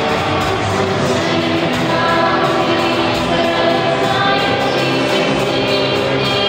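Loud live rock music from a band, an electric guitar holding sustained chords and notes.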